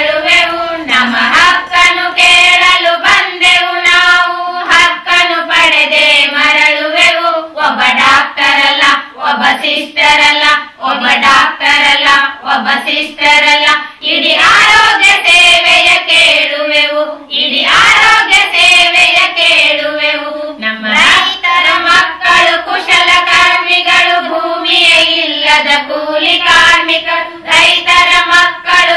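Voices singing a protest song in Kannada to a steady beat of percussion strokes.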